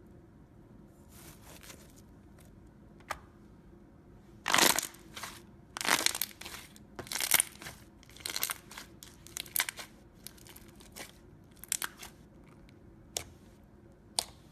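Slime being pressed and squeezed, giving off an irregular run of crackling, crunchy pops. It is densest and loudest about a third of the way in, then thins out to a few single snaps near the end.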